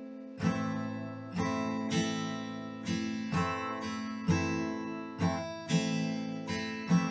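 Acoustic guitar strummed slowly in the six-stroke strumming pattern, down and up strokes in an uneven repeating rhythm. Each stroke rings on into the next, about eleven strokes in all.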